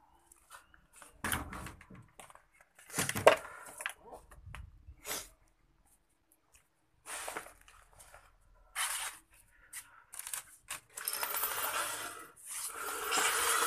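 Clutter being handled during room cleaning: plastic bags and sacks rustling and loose objects scraped and knocked about in irregular bursts, with a heavier knock about three seconds in and a longer stretch of continuous rustling near the end.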